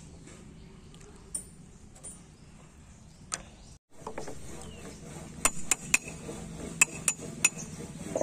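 A wood chisel chopping out a notch in a wooden beam for a joint. Several sharp strikes come in quick succession from about halfway through, after a few seconds of low background.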